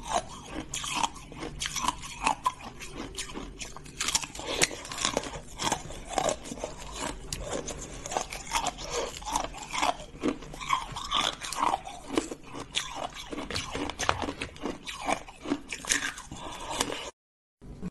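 Hard frozen ice being bitten off and chewed close to the mouth: a dense, uneven run of sharp crunches and cracks that cuts off suddenly about a second before the end.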